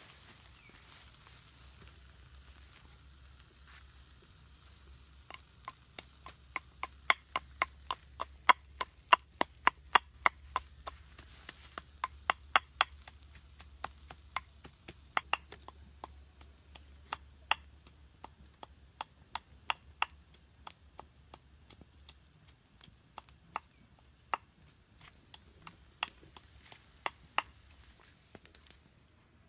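A wooden pestle pounding in a clay mortar to crush red chillies: a run of sharp knocks, two to three a second, that starts about five seconds in and is loudest early on, then slower, irregular strokes that stop near the end.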